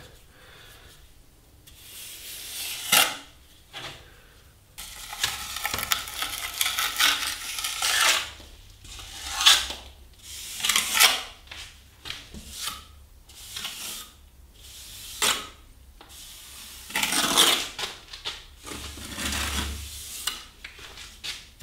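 Plastering trowel scraping and smoothing partly set plaster on a door reveal, in short irregular strokes with metallic scrapes and clinks.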